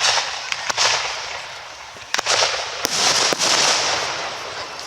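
Aerial fireworks shells bursting in a display: several sharp bangs in quick succession, a cluster at the start and more after about two seconds, over a dense, high, hissing crackle.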